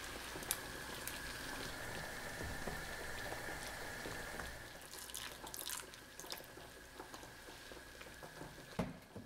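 A thick seaweed-and-oyster soup (maesaengi gulguk) at a rolling boil in an aluminium pan: a steady simmering hiss with small bubbles popping, and a cluster of pops about five to six seconds in. A single dull knock near the end.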